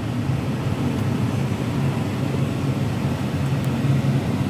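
Case IH Magnum 340 tractor's diesel engine running steadily.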